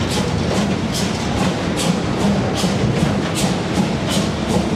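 Empty freight flat wagons rolling slowly past over a low steady rumble. Their wheels give a sharp, regular click about two to three times a second.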